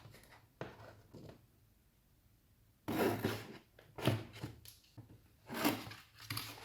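A cardboard toy box being opened by hand: scraping and rustling of the cardboard in several short bursts, with a pause of about a second and a half early on.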